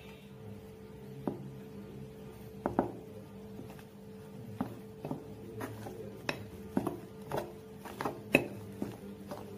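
Chicken pieces being mixed by hand into a thick curd, mint and spice marinade in a glass bowl: irregular light knocks and clicks against the glass, more frequent from about halfway.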